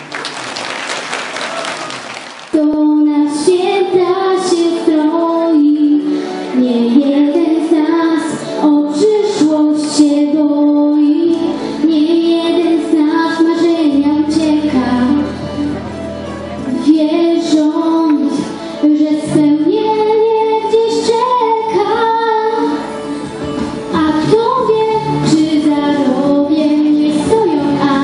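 Applause for about two seconds, then a young girl singing solo into a microphone over instrumental accompaniment.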